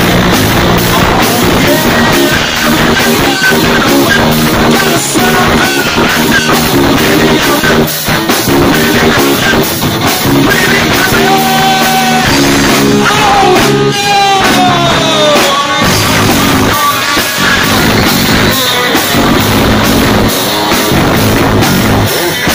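Rock band playing live and loud: distorted electric guitar, bass guitar and drum kit with a steady beat, and a male voice singing.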